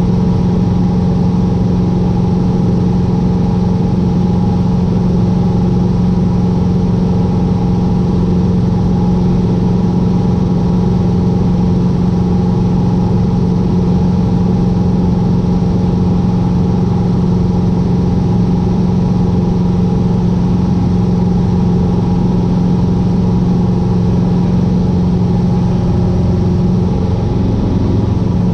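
Cessna 150's four-cylinder Continental O-200 engine and two-blade propeller droning steadily at cruise power, heard from inside the cabin, with a brief wavering near the end.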